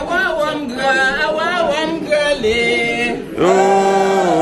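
Unaccompanied group singing by men and women, a cappella. About three and a half seconds in, the singing gets louder and holds one long note.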